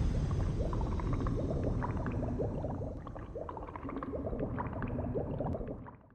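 Sound effect of bubbling, gurgling liquid: many quick bubble blips over a low rumble, fading and then stopping just before the end.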